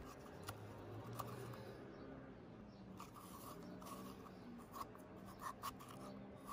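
Hand zucchini corer scraping the flesh out of a zucchini: faint, irregular scraping strokes and small clicks.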